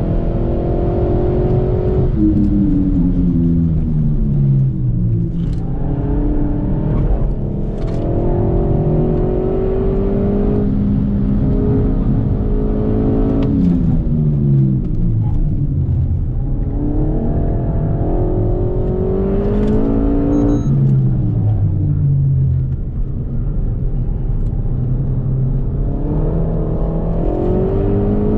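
Renault Mégane IV RS Trophy's turbocharged four-cylinder engine heard from inside the cabin under hard track driving. The revs climb and fall over and over as the manual car is pushed through the gears, lifted off and braked for corners, with a few short clicks along the way.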